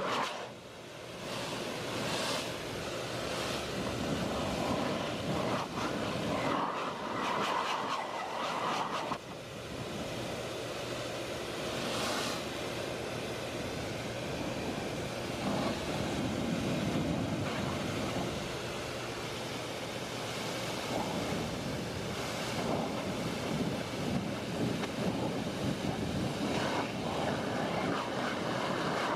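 Leaf blower running, a steady rush of air with a low hum underneath, dipping briefly about a second in and again near nine seconds.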